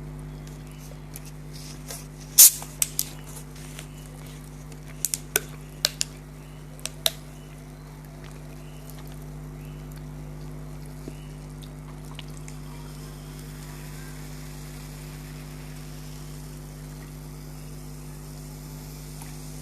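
Close-miked eating: a handful of sharp crunchy bites and wet mouth clicks from chewing fried chicken snacks, bunched in the first seven seconds, the loudest about two seconds in. A steady low electrical hum runs underneath.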